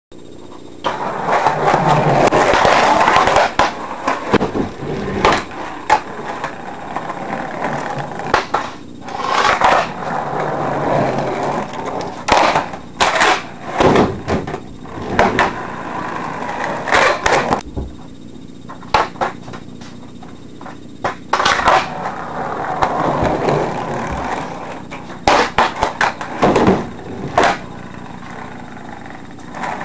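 Skateboard wheels rolling over a basement floor, with many sharp clacks of the board striking the floor scattered throughout.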